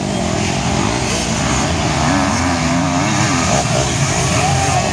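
Motocross dirt bikes racing, their engines revving up and down in pitch.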